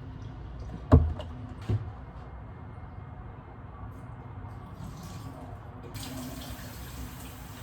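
Two sharp knocks a little under a second apart, about a second in; about six seconds in, a steady hiss starts up.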